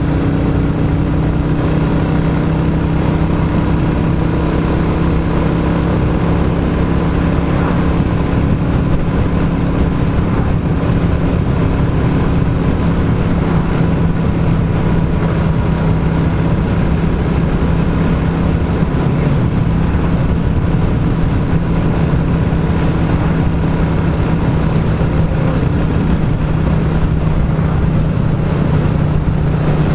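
Royal Enfield Classic 350's single-cylinder engine running at a steady cruising pace through a Hitchcock's de-cat exhaust pipe, its note holding an even pitch throughout.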